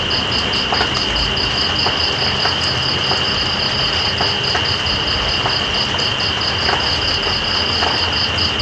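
Steady rain with night insects calling over it: one holds a continuous high trill while another pulses at about five chirps a second.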